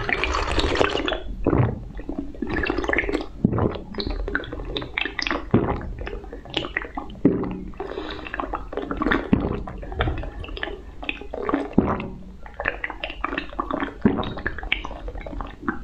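Close-miked slurping and swallowing of a green drink sipped from a glass, an irregular run of short wet sips, gulps and mouth clicks.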